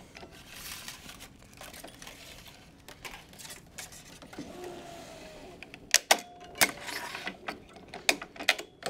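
Racquet string rubbing with a hiss as it is drawn through the grommets. Then the stringing machine's tension head pulls the string with a brief whine that falls slightly in pitch, followed by several sharp clicks of the string clamps and base clamp snapping on and off.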